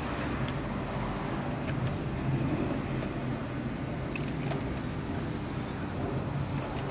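Steady low background rumble, with a few faint light clicks as toy cars are handled in a tub of soapy water.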